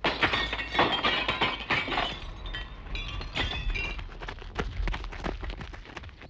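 A dense clatter of sharp clinks and knocks with bright, glassy ringing over a low rumble, cutting off suddenly at the end.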